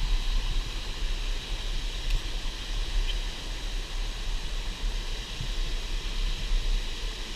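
Steady roar of a tall waterfall's water plunging and splashing, with a low, uneven rumble underneath.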